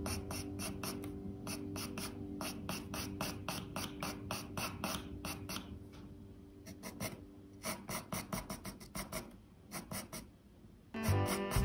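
Graphite pencil scratching across drawing paper in quick short strokes, about four to five a second, as hair strands are shaded in. The strokes grow quieter and sparser in the second half. Soft background music runs under the first part, and a louder music passage comes in near the end.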